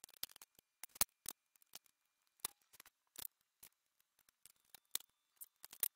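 Metal offset spatula spreading cream over honey cake layers: irregular light clicks and scrapes, several a second, as the blade works across the cake on a glass cake plate.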